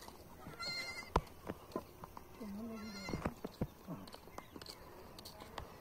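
Young goat kids bleating: a short, high, wavering bleat about a second in and another about three seconds in, with scattered light clicks.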